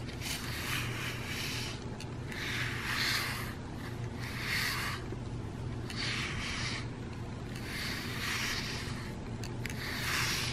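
A brush being drawn through a cat's fur in long strokes, about six of them, roughly one every second and a half.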